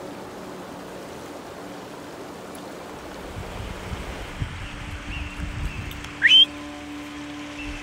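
Mountain stream rushing steadily over rocks. About six seconds in, a brief, loud rising whistle cuts through.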